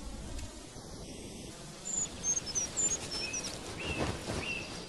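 Small birds chirping in forest ambience: a quick run of high, thin chirps about two seconds in, followed by a few lower chirps.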